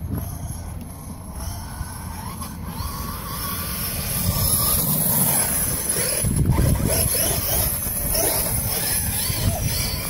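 Brushless electric motor of a KM X2 RC truck, a 520 kV Leopard running on 8 cells, whining up and down in pitch with the throttle as the truck drives across grass. The whine grows louder about four seconds in.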